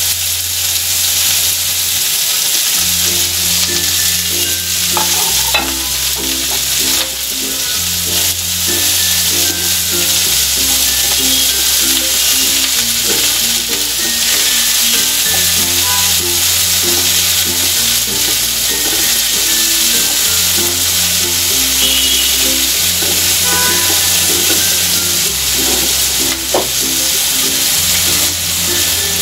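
Sliced onion and garlic sizzling steadily in hot oil in a frying pan, stirred now and then with a wooden spatula. Background music plays underneath.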